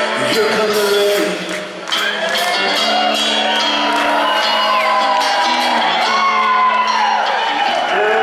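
Live trio of electric guitar, upright bass and drums playing a slow rock song, with pitched notes bending up and down and a few whoops from the audience.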